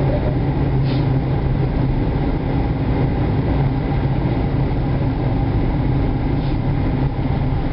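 Steady engine and tyre noise of a car driving on the road, heard from inside the cabin: a continuous low hum with road rumble.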